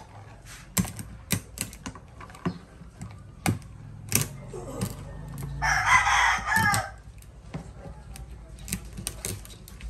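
A knife cracking and crunching through a spiny lobster's hard shell against a wooden chopping block, in a series of sharp clicks and cracks. A rooster crows once for just over a second near the middle, louder than the cutting.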